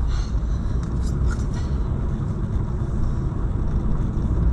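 Steady low rumble of a car driving, engine and tyre noise heard from inside the cabin through a dashcam, with a few faint clicks in the first second or so.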